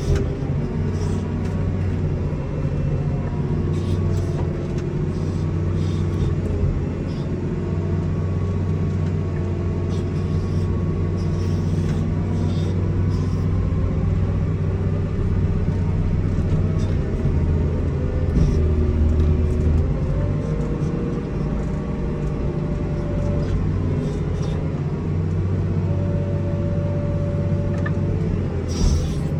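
Komatsu WA270 wheel loader's diesel engine running steadily while the loader pushes snow with a Metal Pless Live Edge plow, with a few light knocks along the way.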